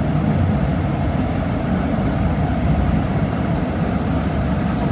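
Volkswagen Volksbus 17.230 Euro 6 bus's diesel engine running steadily, a deep, even drone with no changes in pitch.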